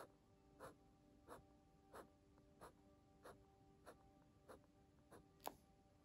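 Marker pen scratching on sketchbook paper, drawing short frond lines: a quick stroke about every two-thirds of a second, the loudest near the end.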